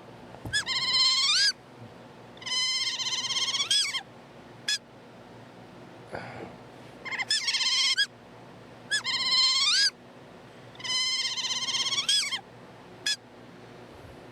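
Otter calls played back from a recording: high, wavering squeals about a second long, each rising and falling in pitch and ending in an upward sweep. The squeals come in two runs of calls, each run closed by a short click.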